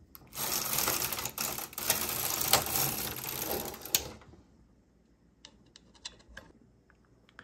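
Carriage of a Singer 328 Memo-matic knitting machine with its SRP 60N ribber pushed across the needle beds to knit one row. It makes a dense run of clicking and rattling for about four seconds, then a few faint clicks.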